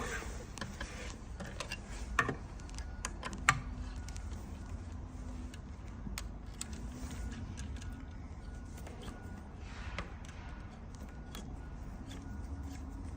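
Light scattered clicks and taps of small metal parts being handled while a brake cable is threaded into a disc brake caliper, with two sharper clicks about two and three and a half seconds in, over a steady low hum.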